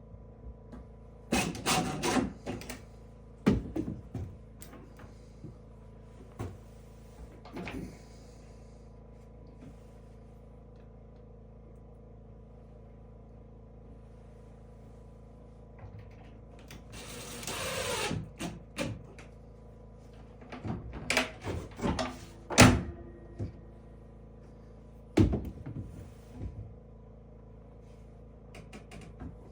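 Scattered wooden knocks and clunks from handling and fitting cabinet doors, in bunches with long quiet gaps. A scraping rush lasts about a second and a half in the middle, and the loudest knock comes about two-thirds of the way through.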